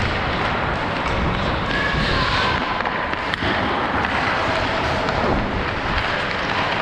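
Ice hockey skates striding and scraping on rink ice, heard from a helmet-mounted camera with a steady rush of wind noise, and a single sharp click about three and a half seconds in.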